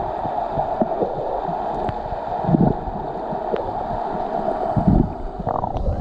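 Water rushing at a waterfall: a steady rush with irregular gurgling and low thumps.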